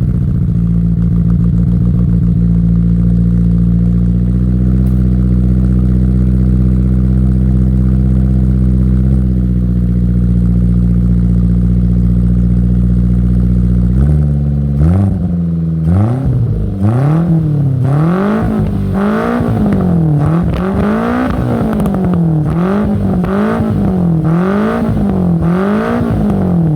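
Car engine running through a one-off exhaust with an RS-R exhaust manifold and GT-K silencer: it idles steadily just after starting, then from about halfway it is blipped, revving up and dropping back about once a second.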